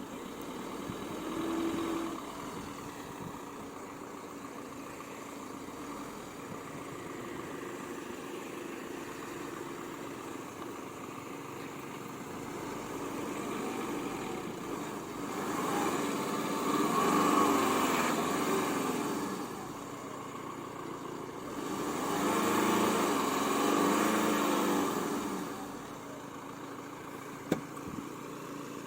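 Fiat Punto Evo's engine running at idle, then revved up and down in two longer spells, about halfway through and again a few seconds later, as the stuck car tries to pull out of the hollow without gaining traction.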